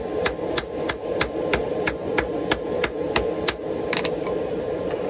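Hand hammer striking white-hot steel on an anvil in a forge weld, setting a spring-steel bit into an axe body at welding heat. Quick, even blows about three a second stop about three and a half seconds in, with one softer blow shortly after.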